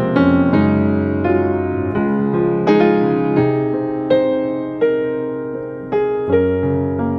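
Background music: slow solo piano (electric or acoustic), single notes and chords struck about once or twice a second and left to ring.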